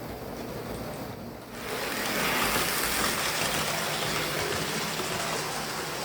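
Hornby OO gauge Battle of Britain class model steam locomotive running on its track under DC power: a steady rushing whirr of motor and wheels on rail. It swells louder about a second and a half in, as the locomotive comes closer.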